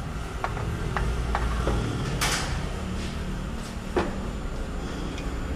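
Metal engine parts and tools being handled on a dismantled scooter engine: a few light clicks and knocks, with a short scrape about two seconds in, over a steady low workshop hum.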